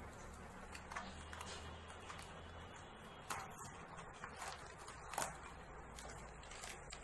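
Paper and packaging rustling and crinkling as items are taken out of a cardboard shipping box, in a few short irregular bursts, the loudest about three seconds in and again about five seconds in.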